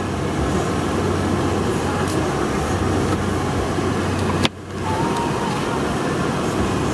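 Steady noise inside a moving car driving through deep snow. About four and a half seconds in there is a sharp click and a brief dip in level.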